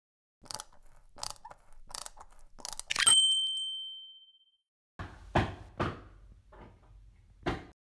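Sound-effect taps: about five light clicks, then a bright bell-like ding that rings briefly. After a pause of about a second, five knocks follow over a low rumble.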